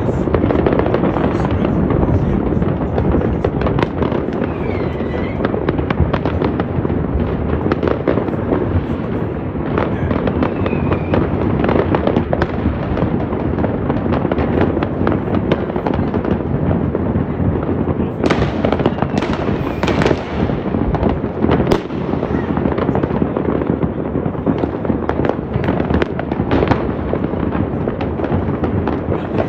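A continuous barrage of fireworks and firecrackers going off across the city, with dense crackling and overlapping bangs. A few short whistles glide through it.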